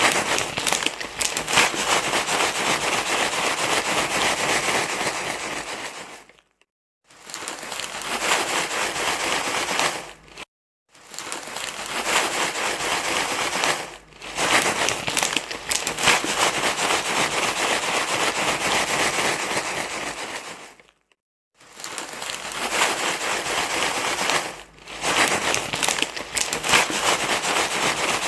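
Dense, continuous crinkling and rustling, a crackly rustle used to calm a crying baby. It stops briefly three times: about a quarter of the way in, just past a third, and about three quarters in.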